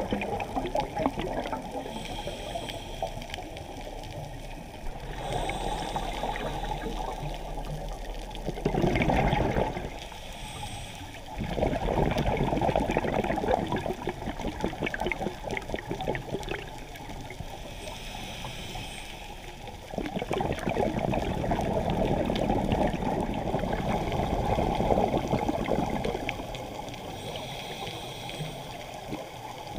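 Scuba diver's exhaled bubbles and regulator, heard muffled underwater through a camera housing. The bubbling rises and falls in surges several seconds long.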